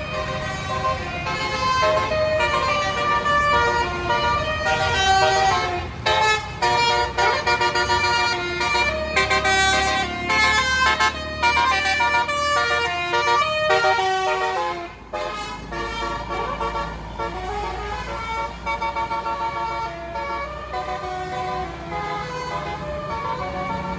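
A bus's Basuri 'telolet' musical air horn playing a tune as a run of held, changing notes with short breaks between them, over a low engine rumble. The tune drops away briefly about two-thirds of the way through, then picks up again more softly.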